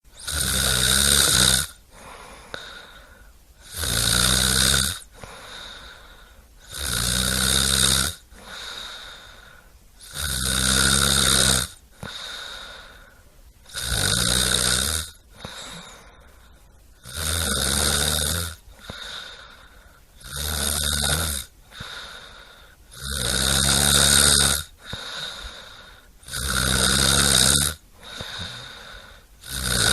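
Loud, regular snoring of a sleeper: about ten long rattling snores on the in-breath, one every three seconds or so, with quieter breathing between them.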